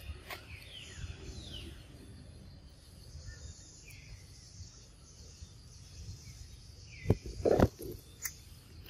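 Steady high buzz of insects with a few short falling chirps. About seven seconds in come two loud dull thumps half a second apart.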